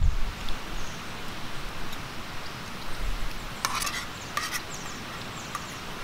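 Food sizzling in a pan with a steady hiss, with two short scrapes of a spoon stirring it about three and a half and four and a half seconds in.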